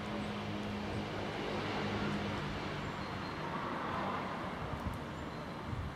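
A motor vehicle going by, a low engine hum with road noise that swells about two seconds in and then eases off.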